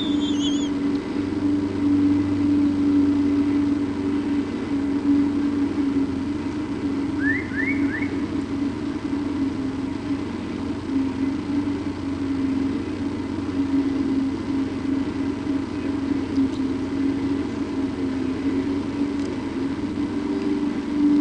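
Steady low mechanical hum throughout, with a couple of high chirps at the very start and three quick rising chirps about seven seconds in.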